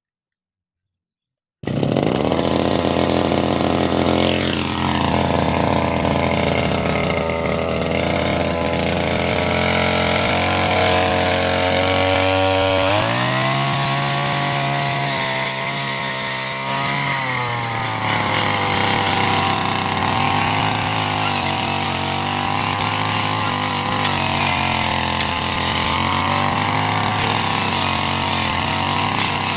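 Brush cutter (motorised grass trimmer) engine running fast. It cuts in suddenly a little under two seconds in. About halfway through its pitch drops as the engine slows for a few seconds, then it speeds back up and runs on with a slightly wavering pitch.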